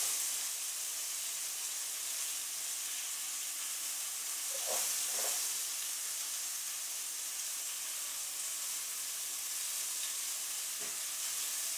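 Minced garlic, green onions and thyme sizzling steadily in hot olive oil in a skillet alongside browned chicken breasts, stirred now and then with a silicone spatula.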